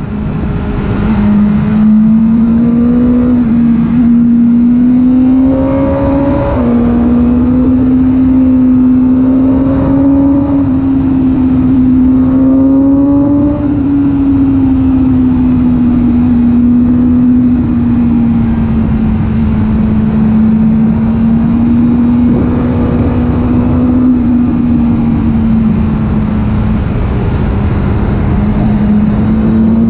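BMW S1000R inline-four engine under way at speed, holding a steady, fairly high note. It makes one sudden drop in pitch about six and a half seconds in, typical of an upshift. After that the note rises and falls only gently as the throttle is held, over a constant rush of wind and road noise.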